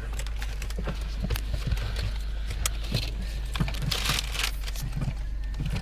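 Low steady drone inside a vehicle cabin, with scattered light clicks and crackles and a brief rustling burst about four seconds in.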